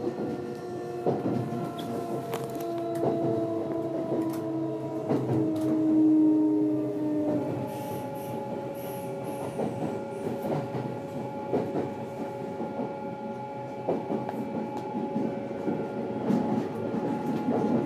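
Kintetsu Series 21 electric train heard from inside the car while running. The whine of its Mitsubishi IGBT VVVF inverter and traction motors falls slowly in pitch, then changes to a different steady set of tones about seven seconds in. Wheels click over the rail joints throughout.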